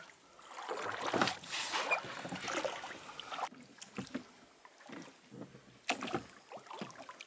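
Rowing a small boat: oar blades swishing and splashing in the water in uneven strokes, with a few sharp knocks.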